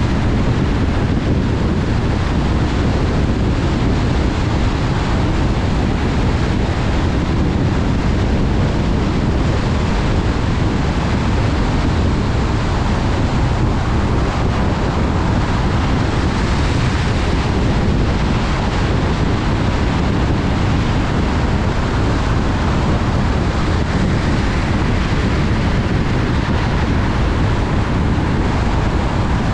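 Steady road noise of a car travelling at highway speed on wet pavement: a continuous rush of tyre hiss and wind, with no distinct engine note.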